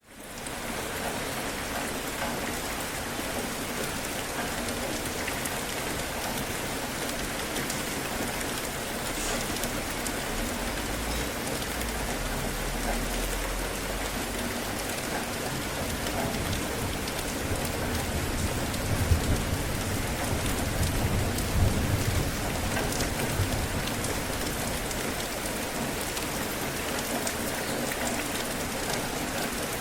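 Steady heavy rain falling, fading in over the first second. Low rumbles of thunder come in about a third of the way through and again about two-thirds through.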